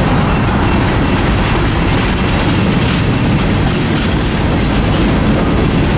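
Freight train's covered hoppers and tank cars rolling past close by: a loud, steady rumble of steel wheels on rail with a clickety-clack of wheels over the rail joints.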